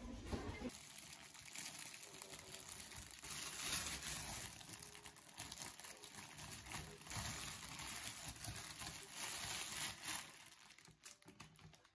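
Plastic bread bag rustling and crinkling as it is handled and opened, in an irregular run of small crackles that dies down near the end.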